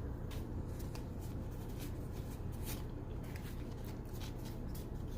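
Pokémon trading cards and a foil booster pack being handled: a run of small irregular crinkles, clicks and card-on-card slides.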